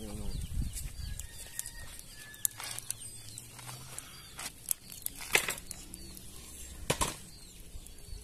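Outdoor yard ambience: small birds chirping, with a few sharp clicks scattered through it.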